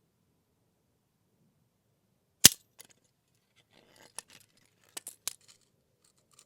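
A mousetrap snapping shut with one sharp, loud crack about two and a half seconds in, followed by a few smaller clicks and rattles over the next three seconds.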